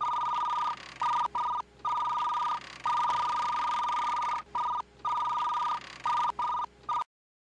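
Electronic two-tone beeping, like a phone signal: a steady pair of high tones switching on and off in uneven stretches, some long and some short. It cuts off suddenly near the end.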